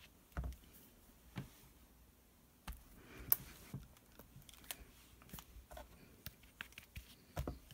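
Faint, scattered clicks and taps of a clear acrylic stamp block being set down, pressed and lifted on cardstock over a craft mat. The sharpest tap comes a bit past three seconds in, with a few more close together near the end.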